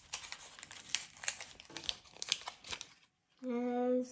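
Small plastic wrapper crinkling and tearing as an LOL Surprise blind-bag packet is opened, a quick run of sharp crackles for about three seconds. Near the end a child hums a steady, level "hmm".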